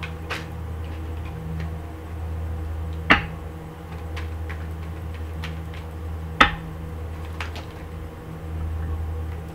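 A deck of tarot cards handled and shuffled by hand, with scattered light ticks and two sharp knocks about three seconds apart, over a steady low hum.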